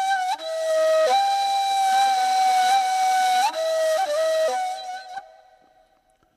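A solo flute playing a slow melody of long held notes, with a breathy hiss around the tone. It fades out about five seconds in, leaving near silence.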